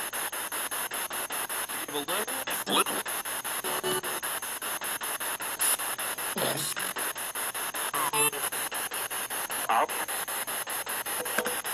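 Spirit box radio scanner sweeping through stations: steady static chopped several times a second, with brief fragments of radio voices and tones breaking through. The uploader reads one fragment, about halfway through, as the words "evil devil".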